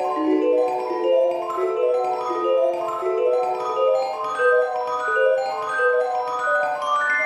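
Background music: a light melody of short, evenly paced struck notes on a mallet instrument such as a marimba.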